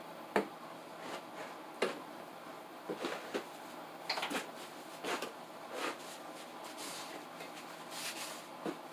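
A series of light knocks, clicks and brief rubbing sounds at irregular intervals, like things being handled and set down, over a faint steady hiss.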